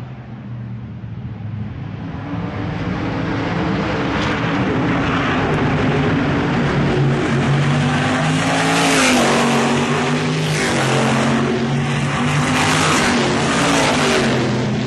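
Supermodified race cars' V8 engines running on track, growing louder as they come round, then several cars passing close in quick succession through the second half.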